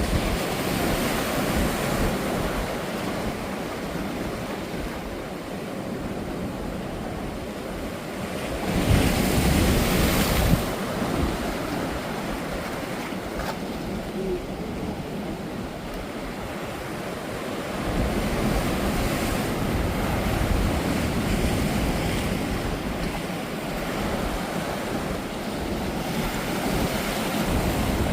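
Ocean surf breaking on a sandy beach: waves crash and wash up the shore in repeated swells, the loudest about nine seconds in and another around eighteen seconds in. The waves are high, and wind rumbles on the microphone.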